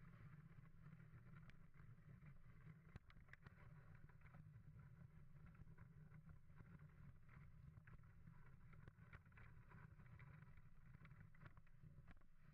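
Faint, steady low rumble and hiss of a wooden sled sliding over a thin, patchy snow cover as huskies pull it, with scattered light knocks and clicks throughout.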